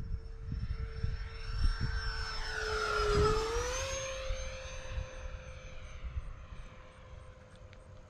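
Freewing A-10 RC jet's electric ducted fans whining as it makes a pass, loudest about three seconds in as it goes by, the pitch dipping and then rising. Wind buffets the microphone in the first couple of seconds.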